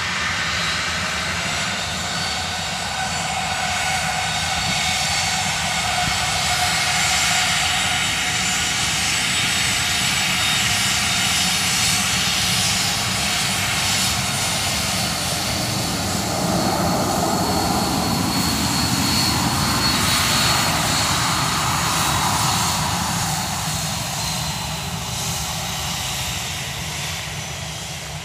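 A WestJet Boeing 737-800's twin CFM56-7B turbofan engines at takeoff thrust through the takeoff roll and liftoff: a steady jet noise with a thin high whine, growing to its loudest about two-thirds of the way through, then fading near the end as the jet climbs away.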